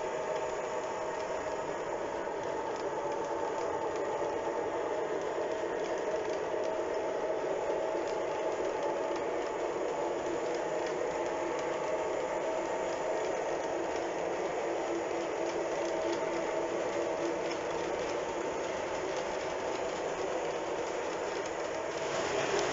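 Lionel O-scale model tank cars rolling past on the track: a steady metallic rumble and rattle of small wheels on rail, getting louder near the end as the train comes closer.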